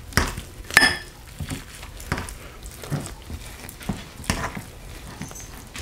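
Two metal forks shredding slow-cooked chuck roast in a glass dish of gravy: soft wet squishing with scattered light clicks of the forks against the dish, one sharper ringing clink about a second in.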